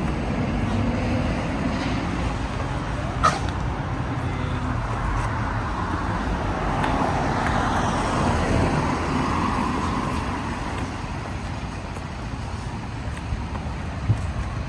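Road traffic running alongside: a car passes, its noise swelling and fading about halfway through over a steady low rumble. A sharp click about three seconds in.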